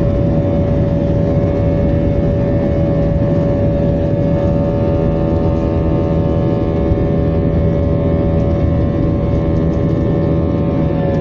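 Airbus A320's jet engines at takeoff thrust heard from inside the cabin during the climb-out just after liftoff: a loud, steady rumble with a constant whine-like tone over it.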